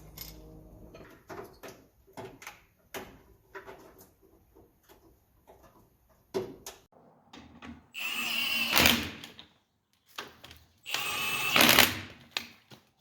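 A power driver whirring in two bursts of about a second each, driving the fender screws home. Before them come a run of light clicks and taps as parts are handled.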